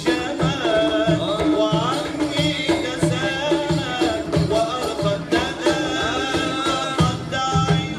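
Live Sufi devotional chant (inshad): an ornamented, gliding melody over a steady frame-drum beat.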